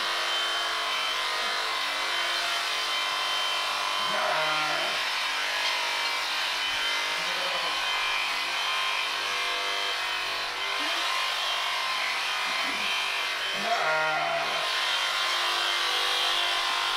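Electric sheep shears running with a steady buzzing hum as the handpiece cuts through a sheep's fleece. A few brief voices come through in the background.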